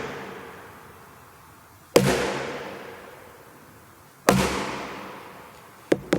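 Sharp, loud impacts on a watermelon, each ringing out into a long echoing decay in a big room. A tail is dying away at the start, single hits come about two seconds apart, and two quick hits follow near the end.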